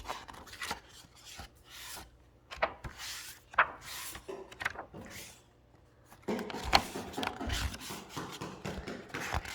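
Pages of a picture book being turned and handled: paper rustling and rubbing with a few light knocks, busier and louder from about six seconds in.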